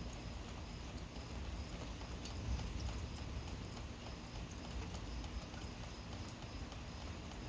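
Gentle rain falling steadily, with scattered drops ticking at irregular moments.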